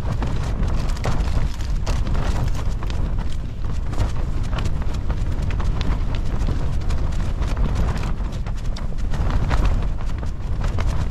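Strong wind buffeting a Fjallraven Abisko Lite 2 tent, heard from inside: a continuous low rumble of gusts, with rapid, irregular taps and rattles as the fabric is battered.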